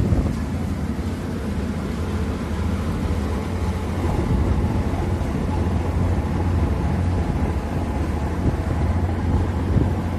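Ship's engine running with a steady low drone, with a hiss of noise above it.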